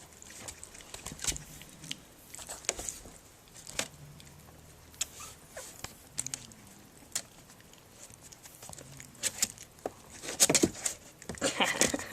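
Three-week-old Pembroke Welsh Corgi puppy scuffling and play-biting, with scattered small clicks and scrapes; the scuffling gets busier and louder near the end.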